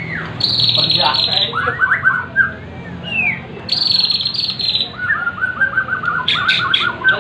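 Bornean white-rumped shama singing. It gives two bursts of fast, buzzy high trills and runs of rapid repeated chirps, the prenjak-imitating volleys that shama keepers call 'tembakan prenjak'.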